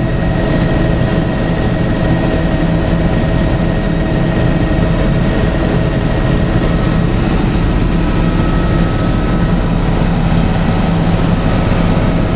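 Helicopter in flight heard from inside the cabin: a loud, steady drone of engine and rotor with a thin, high whine over it.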